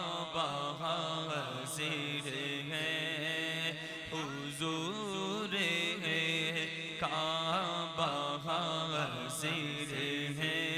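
Male voice singing a naat in long, wavering, drawn-out melodic notes with no clear words, over a steady unbroken drone.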